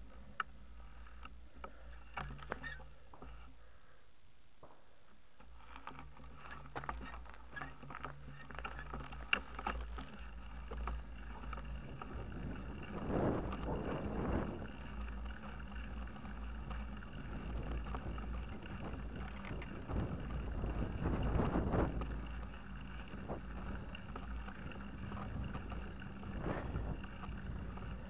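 Ride noise from a Steppenwolf mountain bike on an asphalt road, picked up by a bike-mounted camera: steady tyre rumble and wind on the microphone, with sharp rattling clicks from the bike over the first part. The wind noise swells louder twice, about halfway through and again later.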